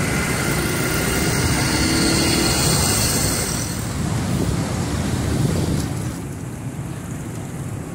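Motorcycle engine and wind noise while riding. From about four seconds in, the tyres roll through standing water, and the sound eases off near the end.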